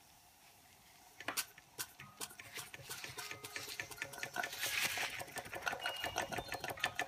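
Victorian toy vertical steam engine starting up: about a second in, a few separate clicks of its strokes, then beats that come quicker and quicker into a fast, even clatter as the engine gathers speed.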